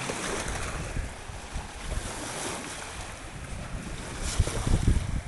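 Wind buffeting the microphone over the wash of water from boat waves, with stronger low gusts near the end.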